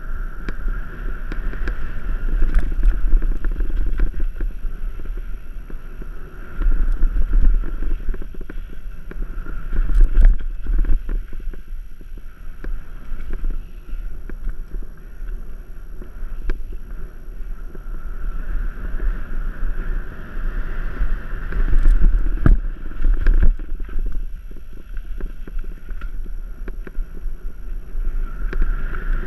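Mountain bike descending dirt singletrack: wind buffeting the camera's microphone in surging gusts, over tyre noise on the dirt and scattered knocks and rattles from the bike over bumps.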